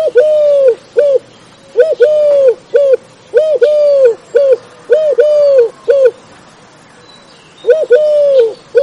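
A dove cooing in repeated three-note phrases, a short coo, a long drawn coo and a short coo, about every second and a half, with one longer pause near the end.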